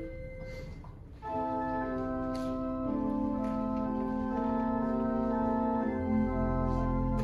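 Organ music, slow and sustained: a held chord dies away in the first second, new chords come in about a second in, and a deep bass note joins near the end.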